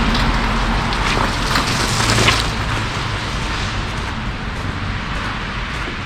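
City street ambience: a steady hiss of traffic that slowly fades, with a few faint ticks in the first couple of seconds.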